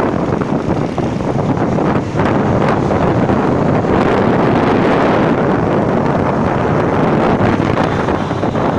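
Wind rushing over the microphone on a moving motorcycle: a loud, steady rush that swells a little around the middle.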